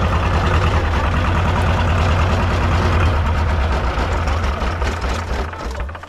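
Engine of a homemade farm 'tuk-tuk' cart running steadily with a loud low hum, fading away near the end.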